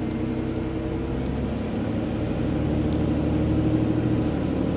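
Car engine running in drive against the held brake, its note climbing slowly as throttle is brought up toward 1,500 rpm for a brake-torque vacuum check.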